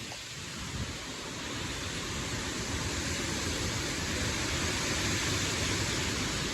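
Strong wind gusts rushing steadily ahead of a severe thunderstorm's gust front, building gradually louder.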